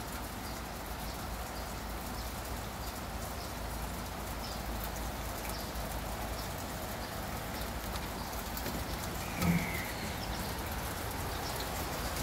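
Steady rain falling on wet paving, with scattered faint drop ticks. About nine and a half seconds in, a short faint bird chirp and a brief low sound, the loudest moment.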